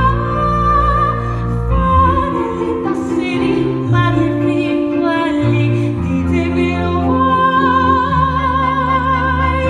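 Live musical-theatre orchestra playing, with a high wavering melody line held over low sustained bass notes that shift every second or two.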